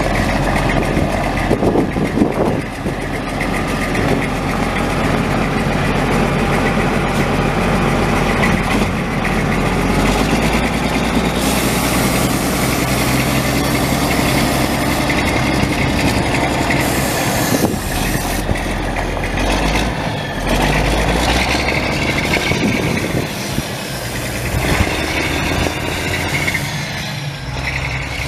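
Detroit Diesel 12.7 L inline-six turbo diesel of a 1995 Freightliner FLD semi truck idling, its engine speed shifting a few times. A stretch of hiss joins it in the middle.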